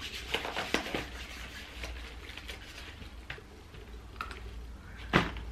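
Cardboard advent calendars and chocolate wrappers being handled: scattered small clicks and crinkles, with one sharper knock about five seconds in.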